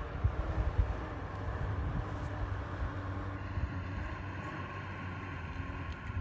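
Toyota Land Cruiser engine pulling steadily in second gear as it climbs a snowy dirt track, a continuous low drone.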